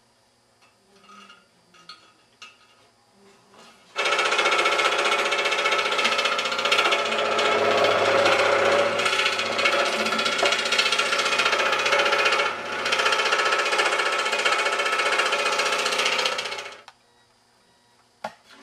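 Scroll saw running, its reciprocating blade cutting through a thin copper sheet taped on both faces, making an interior cut. It starts about four seconds in after a few faint handling clicks, runs steadily with a brief dip partway through, and stops abruptly near the end.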